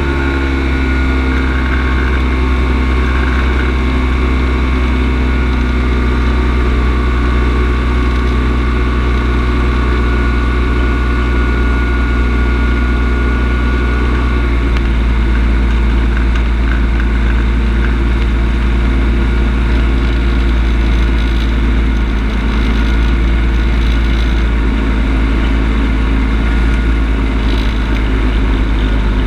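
Kolb Firestar II ultralight's two-stroke engine and pusher propeller running steadily in flight, with wind rush. The engine note drops right at the start and changes again about halfway through as the power is reduced.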